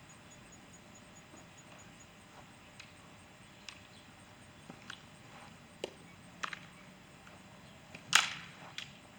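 Longsword sparring: scattered sharp clacks and knocks of blade and body contact, with one loud strike about eight seconds in that rings briefly.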